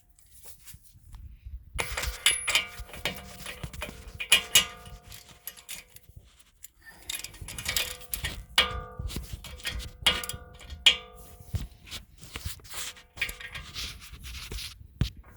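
A 22 mm wrench tightening the castle nut on a new outer tie rod end: bursts of quick metallic clicks and clinks with a ringing tone, stopping and starting several times.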